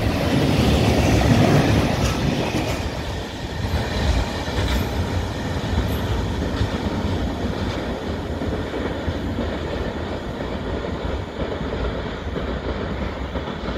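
Freight train of covered grain hopper wagons rolling past on the track, wheels rumbling and clattering over the rails. The sound is loudest for the first couple of seconds, then eases off and holds steadier as the last wagons move away.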